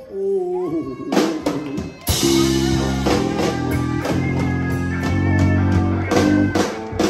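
Live band playing: electric guitar, bass guitar, drum kit and keyboard. A man's voice at the mic in the first second gives way to a few sharp band hits, and the full band comes in about two seconds in with a strong bass line.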